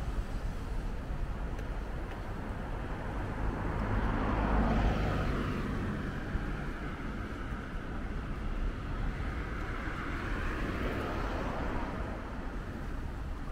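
Street traffic with a steady low rumble. A car passes close about four to five seconds in, and another about ten seconds in.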